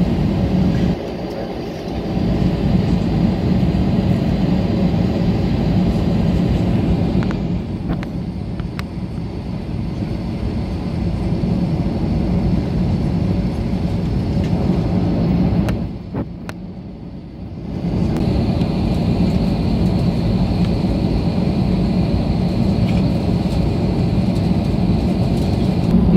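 Steady cabin noise of a jet airliner taxiing with its engines at idle, a low rumble and hum. The level drops briefly twice, about a second in and again about two-thirds of the way through.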